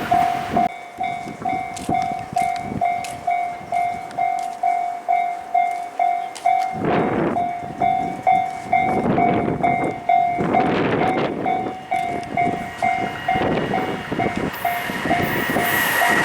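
Level crossing warning bell ringing steadily at about two strokes a second. Several loud passing whooshes come through the middle, and near the end a train's sound builds with a high whine.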